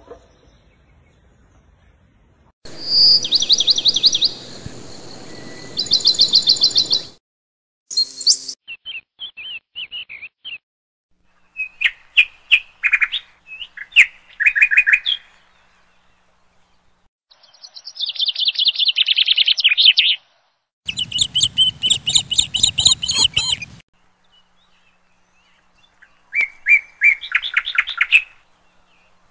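Birds chirping and trilling in a string of separate bursts, each of rapid repeated high notes, several different calls one after another, each cut off sharply with short silences between.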